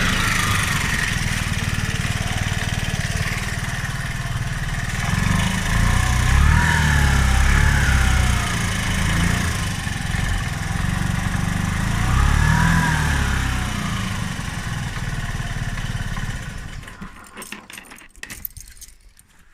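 Piaggio X9 125 scooter's single-cylinder four-stroke engine idling, revved up and back down twice, then stopping near the end. It is running after a cylinder head gasket replacement, and the owner is unsure whether its noises are normal and suspects the timing may be out of adjustment.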